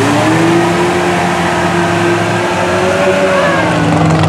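Lifted mud truck's engine running at high revs under load as its big tyres churn through deep mud, the pitch wavering up and down, over the rushing noise of mud and water being thrown.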